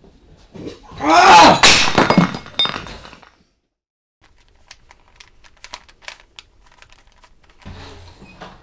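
A ceramic bowl smashing on a wooden floor about a second in, with pieces clinking and ringing for about two seconds after the impact.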